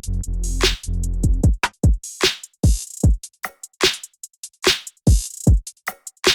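Electronic backing music with a drum-machine beat: punchy kicks that drop in pitch, sharp snare and hi-hat hits, and a held bass note that stops about a second and a half in, leaving the drums alone.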